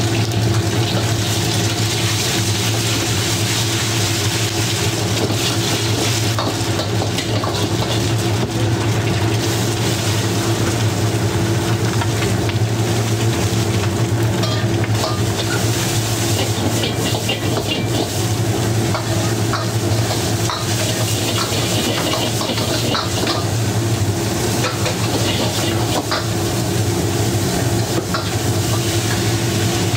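Food sizzling in a hot wok as eggs, shredded carrot and bean sprouts are stir-fried, with a metal ladle scraping and clicking against the wok. A steady low hum runs underneath.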